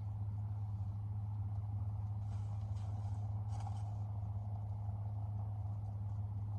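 Steady low hum of a car's idling engine and ventilation heard from inside the cabin, with a few faint brief rustles two to three and a half seconds in.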